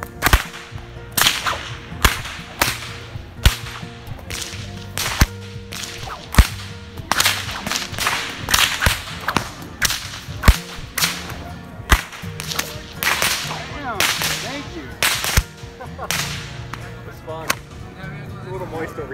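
Bullwhip being cracked over and over, about twenty sharp cracks at uneven spacing, roughly one a second, some with a brief swish of the lash before the crack.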